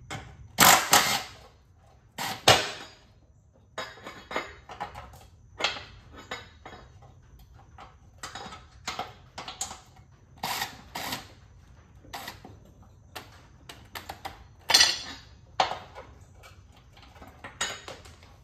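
Irregular metal clinks and clanks of hand tools and steel bolts against a steel mower deck as the deck's shouldered hub bolts are worked loose, with loud clanks about a second and two and a half seconds in and another near fifteen seconds.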